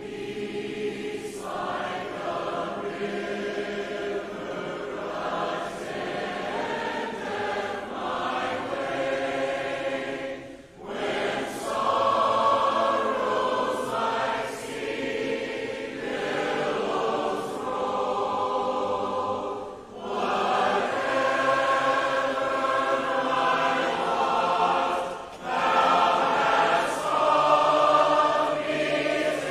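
A group of voices singing a closing hymn together, a cappella in parts, in long held phrases with short breaths between them.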